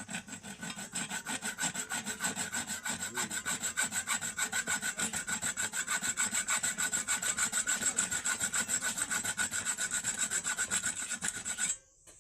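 Fast, even back-and-forth rasping strokes of a hand tool scraping a hard surface, several strokes a second, which stop abruptly near the end.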